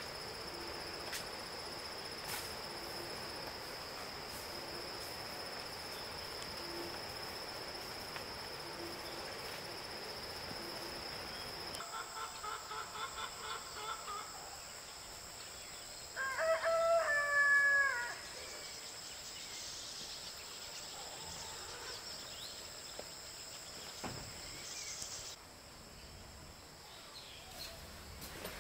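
A rooster crows once a little past the middle, a call about two seconds long and the loudest sound here, shortly after a quick run of short notes. Insects keep up a steady high-pitched drone throughout.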